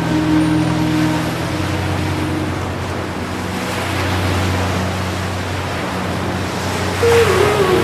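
Ocean waves washing steadily under soft, held music tones; a wave surges louder near the end as a few notes step downward.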